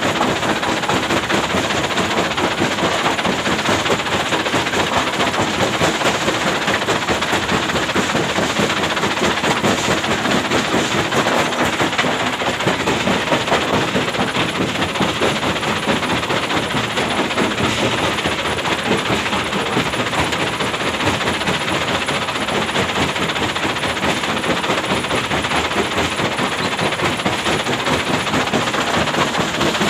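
Hyundai excavator running steadily, a dense, even mechanical rushing noise with no distinct knocks or clanks.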